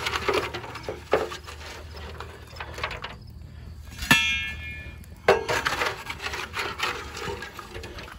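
A metal shovel scrapes hot charcoal out of a metal ash bucket and tips it onto a cast iron Dutch oven lid, with gritty scraping and clinking of coals. About four seconds in comes a sharp metal clang that rings briefly, then another knock a second later.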